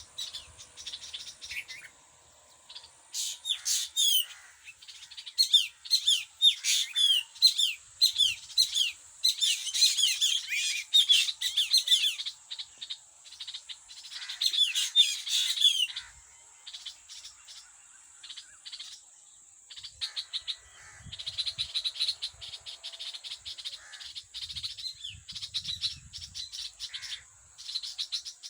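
Birds chirping in a tree: rapid runs of short falling chirps, dense and loud for the first half, then thinner and quieter. A steady thin high tone runs underneath.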